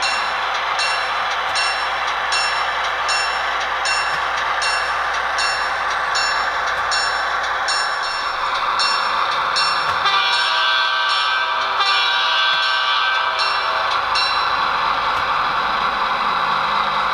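Diesel locomotive sounds over a steady running noise: a bell-like ringing about two to three times a second for the first ten seconds or so, then a horn sounding for several seconds.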